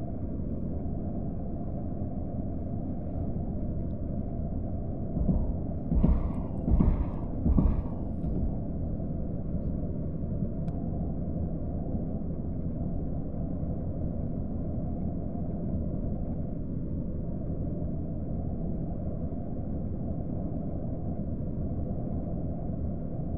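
Steady low rumble of a car driving at speed, heard inside the cabin: tyre and engine noise. Three or four brief, louder sounds stand out about six to eight seconds in.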